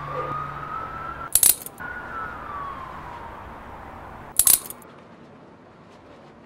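A police siren wailing in one slow rise and fall that fades away, with two short, sharp clattering hits cutting in about a second and a half and four and a half seconds in.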